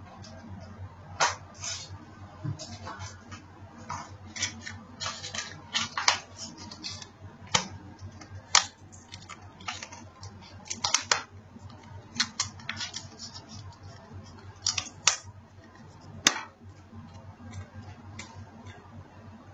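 Irregular clicks, taps and short rustles of a smartphone and its packaging being handled, over a low steady hum.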